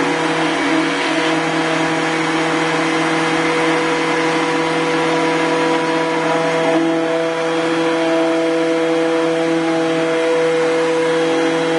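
Stick blender motor running steadily while blending thick hot-process soap batter in a stainless steel pot. This is the agitation that drives saponification.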